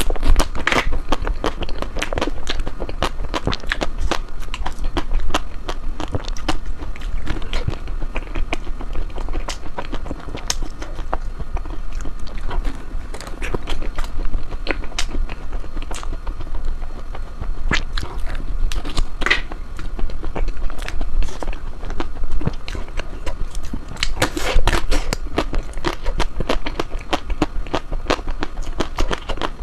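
Close-miked eating of ice cream: biting and chewing, heard as a dense, irregular run of crisp crackling clicks.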